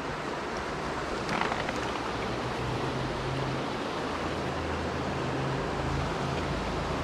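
Steady rush of a mountain stream and waterfall, with a low hum joining about two and a half seconds in.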